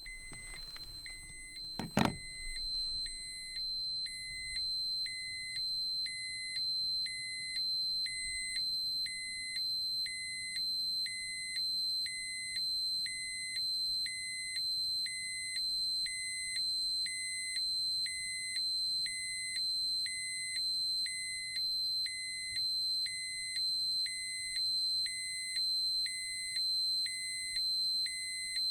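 Dosimeter alarm: a high electronic tone sounding continuously while a lower beep pulses on and off about once a second, after a sharp click about two seconds in.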